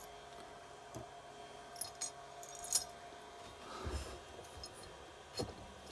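Scattered light metallic clinks and taps of engine parts and hand tools being handled during engine reassembly, the sharpest, ringing clink about two and a half seconds in, with a few duller knocks later.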